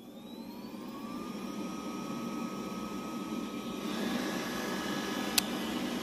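Xiaomi robot vacuum cleaner starting up: its motors spin up with a rising whine that levels off after about a second and a half, and the running noise grows louder about four seconds in. A single sharp click comes shortly after.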